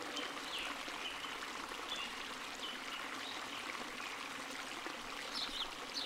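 Outdoor ambience: a steady rush of flowing water, with faint short bird chirps scattered through it and a few clearer ones near the end.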